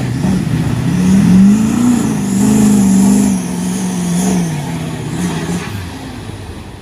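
Ford F-450 diesel pickup accelerating through a mud hole: the engine revs climb, hold, then drop back and fade as the truck passes, with water and mud splashing.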